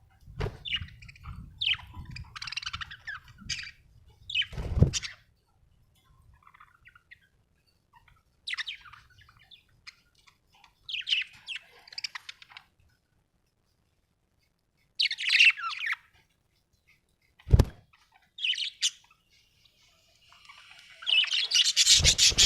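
Budgerigar chirping and chattering in short bursts of high, quick chirps separated by quiet pauses. A single sharp knock comes about two-thirds of the way through.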